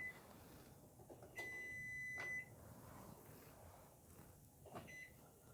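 Electronic beep from a Frigidaire washer-dryer stack unit's control panel: one steady high beep of about a second, then a short one near the end.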